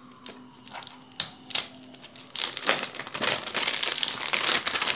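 Thin plastic packaging crinkling in the hand: a few light clicks and taps at first, then from about halfway in a couple of seconds of steady crinkling.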